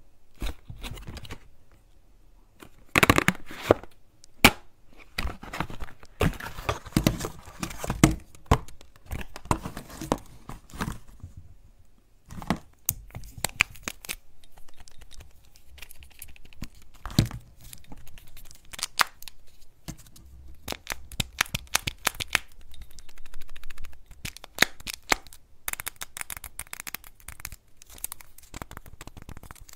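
Close-miked unboxing of Kinder Joy eggs: crinkling and tearing of the eggs' foil wrappers and of the cardboard box, in irregular rustles with sharp clicks between them.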